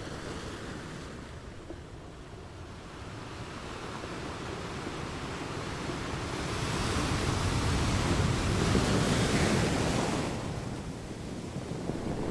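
Ocean waves on a sandy beach: the surf builds over several seconds to a loud wash, falls away suddenly about ten seconds in, and the next wave starts to rise near the end.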